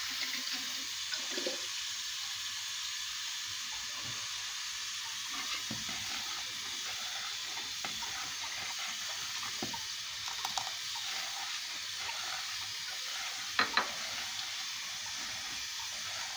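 Metal ladle stirring thick rice pudding in a stainless steel pot, with small scrapes and clicks against the pot and two sharper clinks about three-quarters of the way in, over a steady hiss.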